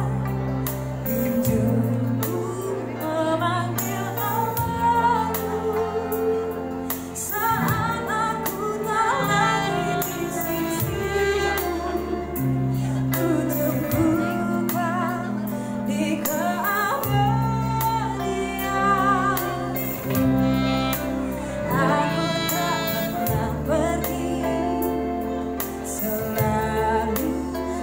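Live band playing a song: a woman sings the lead over electric guitar, a bass line and saxophone, with bass notes changing every second or two.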